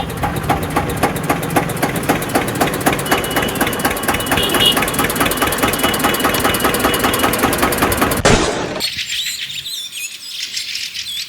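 An engine running with a fast, even knock. It cuts off abruptly about eight seconds in, and birds chirp after it.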